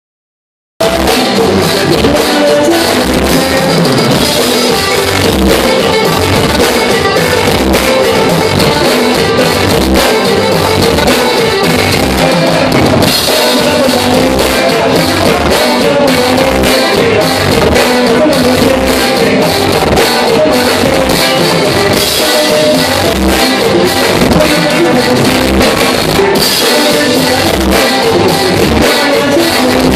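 A live band playing loud, amplified dance music: a drum kit keeping a steady beat under an electric bass guitar and other instruments. The music cuts in under a second in.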